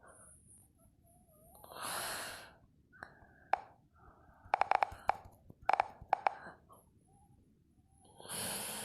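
Two breathy, whispered sounds from a person, about six seconds apart, with a run of small sharp clicks and taps between them.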